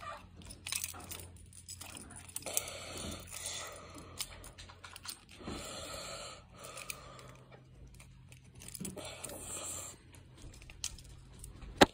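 Hands handling packaging and small hard parts: rustling with scattered clicks and light knocks.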